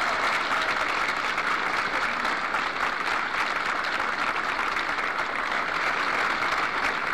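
Crowd applauding steadily: a dense, even clapping that holds its level throughout.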